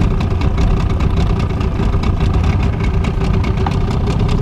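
Small 15 hp outboard motor running steadily at low trolling speed.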